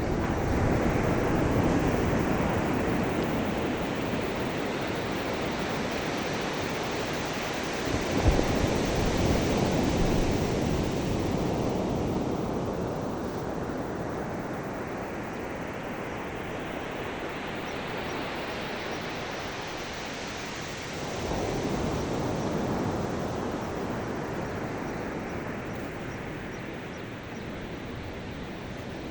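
Ocean waves breaking on the shore, three surges about 8 and 13 seconds apart, each followed by a long wash that slowly fades.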